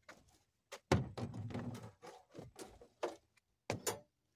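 A series of knocks and thuds on a small aluminum jon boat as someone moves about on board and gear shifts; the loudest comes about a second in with a short low rumble after it, and several lighter knocks follow.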